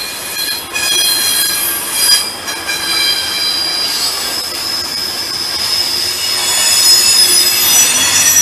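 Container freight train rolling past, its wagon wheels squealing against the rails in several high, shifting tones over the rumble of the passing wagons. The squeal grows stronger in the second half.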